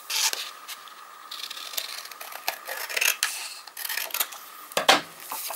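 Paper scrap being cut by hand: a run of short crisp cutting and rustling sounds. A sharper tap comes near the end.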